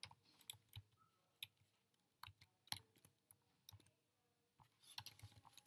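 Computer keyboard keystrokes, quiet and scattered, with a quicker run of keys near the end.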